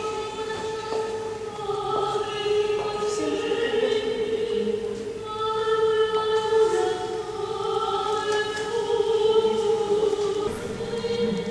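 Orthodox church choir singing a slow liturgical chant. One part holds a steady low note throughout while the upper voices move between long held notes.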